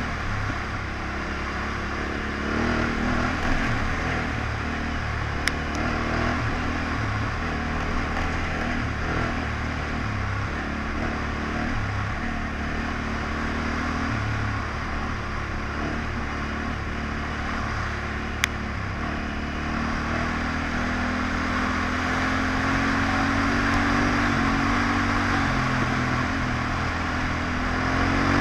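Yamaha Ténéré 700's parallel-twin engine running under way at moderate speed, its note stepping with the throttle and climbing a little in the last third, over a steady rush of wind noise. Two sharp ticks, about 5 and 18 seconds in.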